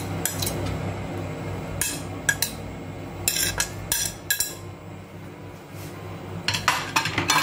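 A metal knife and tongs scraping and clinking against a ceramic plate as diced fried ham is pushed off it into a pan, in short clusters of sharp clinks, with a steady low hum underneath.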